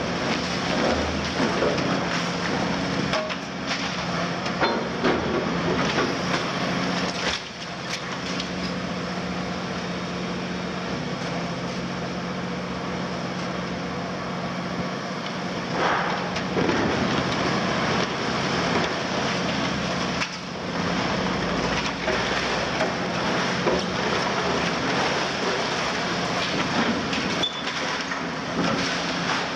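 Cat 352F demolition excavator's C13 diesel engine running with a steady hum, under the crunching and cracking of reinforced concrete being broken from the upper floors and rubble clattering down. The crunching swells about halfway through.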